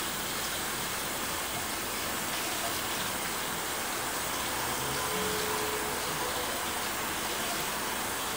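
Kitchen tap running steadily onto noodles in a stainless steel colander in the sink, as hands rinse them under warm water.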